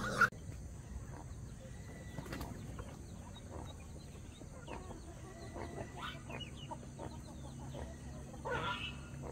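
Chickens clucking and peeping faintly in scattered short calls over a low steady hum, after a brief thump right at the start.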